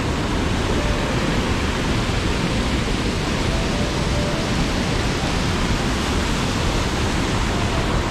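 Waterfall rushing steadily: the flow of Deer Leap Falls on Dingmans Creek.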